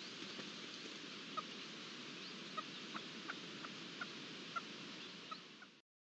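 A red-legged partridge family giving short, soft call notes, roughly two a second, scattered over a steady background hiss; the sound cuts off abruptly near the end.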